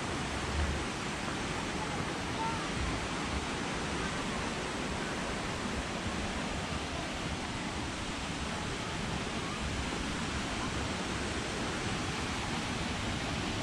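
Steady rushing of creek water, an even unbroken roar, with a soft low thump about half a second in.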